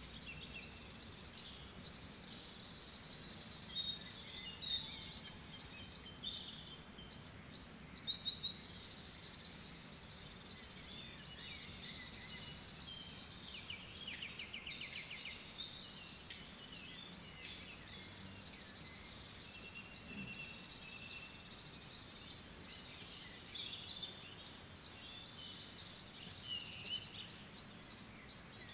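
Woodland birds singing, many overlapping chirps and short trills. One bird close by sings a loud run of fast repeated notes from about 6 to 10 seconds in.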